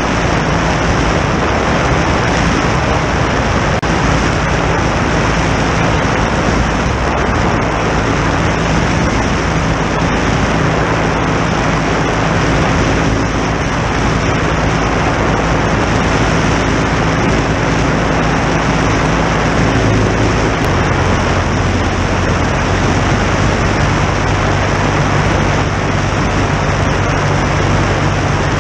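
Legal Eagle ultralight's two-cylinder horizontally opposed engine and propeller running steadily in flight, with heavy rushing wind and propeller noise over the microphone. The engine note changes about two-thirds of the way through as the power setting changes.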